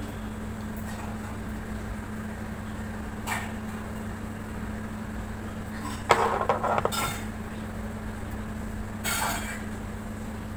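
Small scissors snipping through hair: a few short crisp snips about three and nine seconds in, and a louder cluster of snips and hair rustling around six to seven seconds in, over a steady low hum.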